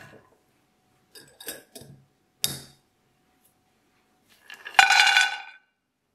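Glass swing-top jar being shut: a few clicks of the wire clasp, then a sharp clink of the glass lid closing on the jar. About five seconds in comes the loudest sound, a clatter of almonds and walnuts tipped into a stainless steel frying pan, with the pan ringing briefly.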